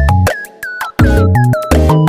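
Background electronic music with a steady beat and a deep bass.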